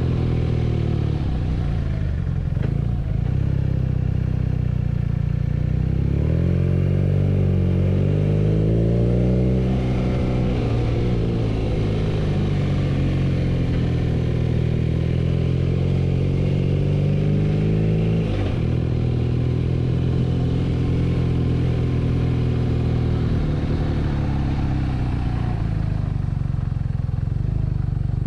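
BMW R nineT's 1170 cc boxer twin engine under way, its note rising and falling as the throttle opens and closes. The note changes abruptly about two-thirds of the way through, then holds lower.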